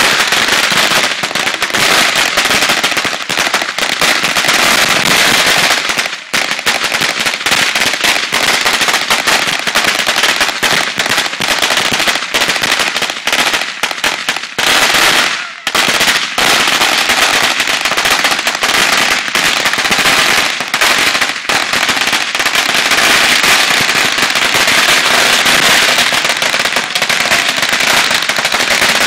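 Consumer ground fireworks going off: spark fountains hissing and crackling in a dense, rapid stream of small pops, dipping briefly about six seconds in and again around the middle.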